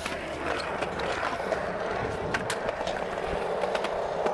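Skateboard wheels rolling over a concrete skatepark surface: a steady rolling noise with a few faint clicks.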